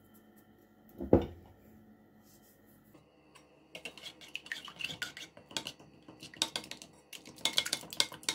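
A single thump about a second in, then from about four seconds in a metal spoon stirring oat-flour pancake batter, clinking and scraping quickly against the ceramic bowl.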